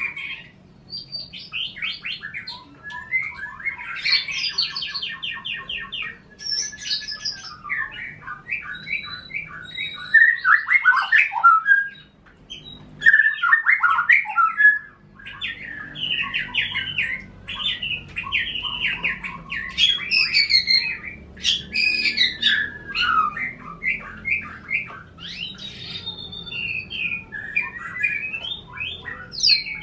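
Caged songbirds singing continuously in fast, varied phrases with rapid trills and chattering notes, pausing briefly about twelve seconds in: a canary F1 singing as the master (tutor) song beside a white-rumped shama (murai batu) being taught to sing.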